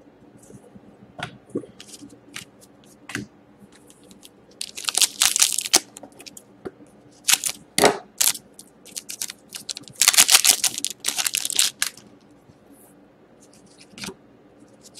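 Foil wrapper of a hockey card pack being torn and crinkled in three loud bursts, with light clicks and rustles of cards being handled between them.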